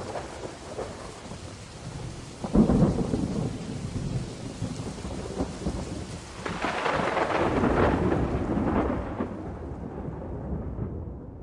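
Thunderstorm with steady rain. A sudden thunderclap comes about two and a half seconds in, and a longer rolling rumble from about six and a half to nine seconds, dying down near the end.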